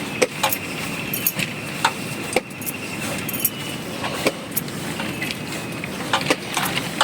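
Metal clinking and jangling: a string of sharp, separate clinks, some ringing briefly, with a faint steady high tone through the first few seconds.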